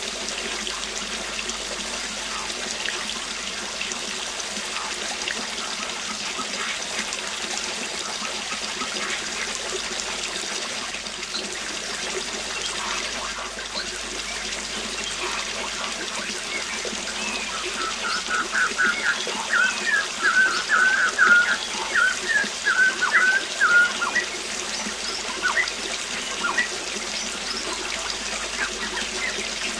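Steady rush of a waterfall with birds chirping here and there; past the middle a bird sings a fast run of bright, repeated notes for several seconds, the loudest sound.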